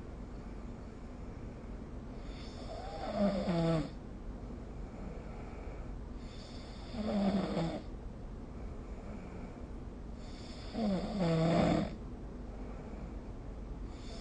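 A person snoring in sleep, one snore about every four seconds, each lasting about a second and a half, over a steady background hiss.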